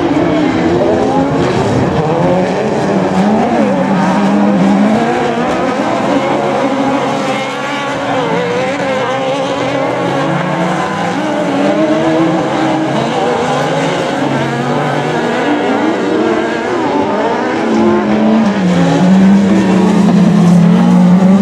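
Several autocross buggy engines racing together on a dirt track, their pitch rising and falling as they rev through gears and corners. Over the last few seconds one engine grows louder and holds a steady note.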